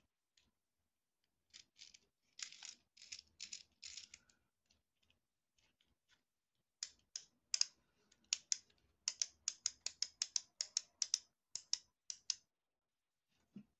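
Sharp plastic clicks and taps from a wind-up walking chicken toy's plastic shell and clockwork mechanism being handled: a few scattered clusters, then a quick run of about four clicks a second over the last several seconds.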